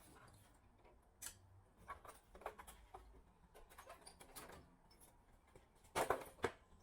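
Scattered light clicks and taps, with two louder clicks close together about six seconds in.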